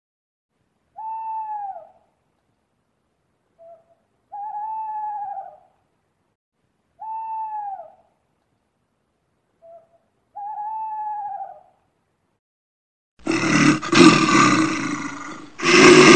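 An owl hooting: four single hoots about three seconds apart, each a short note that rises then falls, two of them led by a brief soft note. Near the end, an animal roars loudly twice, the second roar being the loudest sound.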